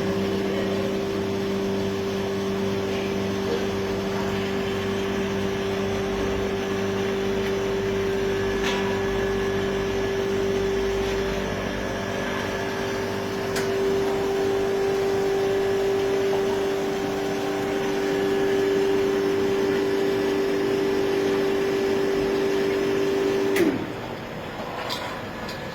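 An automatic beer-keg washing machine runs steadily with a humming pump motor and a few faint clicks. Near the end it shuts off with a click and a short drop in pitch as it winds down.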